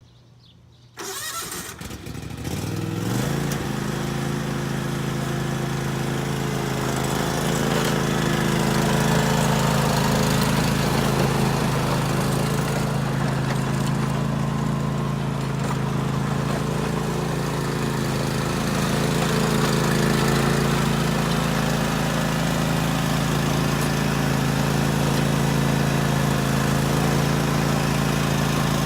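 John Deere GT235 lawn tractor engine starting about a second in, picking up speed over the next couple of seconds, then running steadily.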